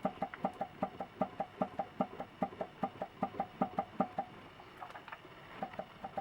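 Toyota Corona's 4S-FE engine running with a crankshaft knock: a steady, even knocking of about five knocks a second. The knocking fades a little past the middle and returns near the end.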